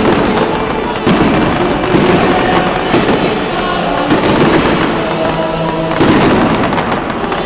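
A dense fireworks barrage in the sky: continuous crackling and popping, with heavier bangs about a second in, at two seconds and again at six seconds.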